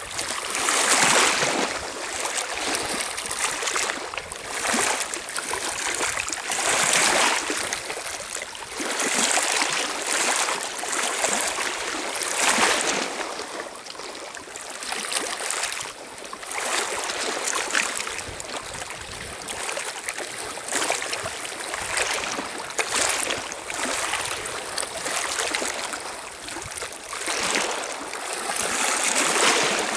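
Small lake waves lapping and washing over a pebble shore, swelling and falling back every couple of seconds.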